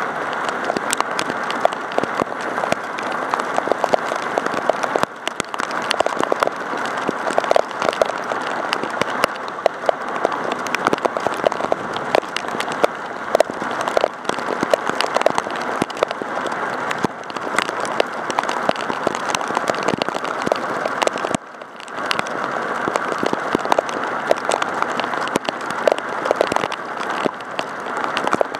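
Heavy rain striking a Contour action camera and the pavement around it: a dense, steady crackle of drops hitting close to the microphone, briefly dipping in level about three-quarters of the way through.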